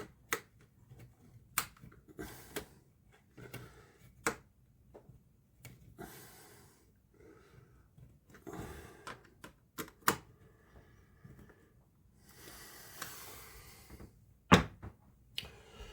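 Scattered small clicks and taps of plastic monitor parts and a tool being handled, with a few short rustles in between; the sharpest click comes near the end.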